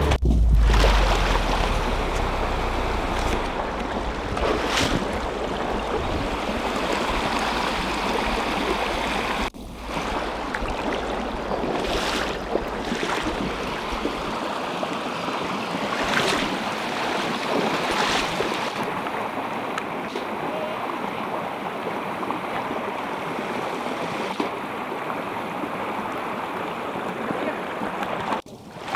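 Snowmelt stream running fast, a steady wash of rushing water.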